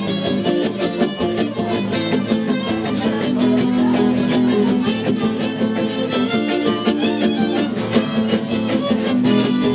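Live gypsy jazz (jazz manouche) on violin and two acoustic guitars: the bowed violin plays the melody over a steady, evenly strummed guitar rhythm.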